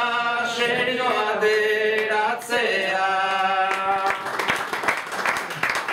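A man sings the closing line of an improvised Basque verse (bertso) unaccompanied into a microphone, holding long notes. About four seconds in, the audience breaks into applause.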